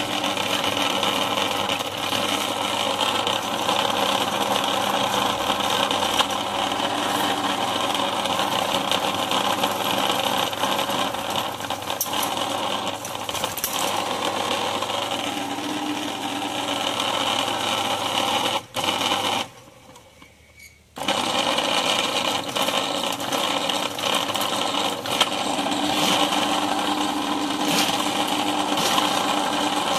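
Ridgid K-1500 sectional drain cleaning machine running steadily, its electric motor turning the spiral steel cable down the sewer drain to try to pull out a jetter hose stuck in a collapsed pipe. The sound stops briefly about two-thirds of the way through, then starts again.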